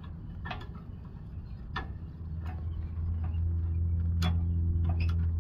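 A handful of light metal clicks and clinks as brake-assembly parts are handled and fitted on the tractor's transmission, over a steady low hum that grows louder in the second half.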